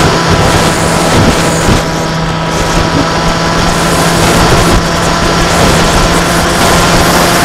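Motor and propeller of a small FPV aircraft running steadily, picked up by the onboard camera: a constant low hum with faint higher whining tones, under heavy wind rushing over the microphone.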